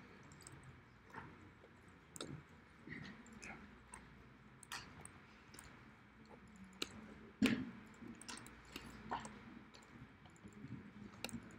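Faint, irregular clicks of a computer mouse and keyboard, with a few light knocks, the loudest about seven and a half seconds in.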